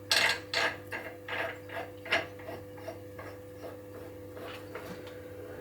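Central heating circulation pump running with a steady hum, over a run of sharp, ratchet-like metallic clicks and scrapes, several a second, that thin out and fade after about three seconds.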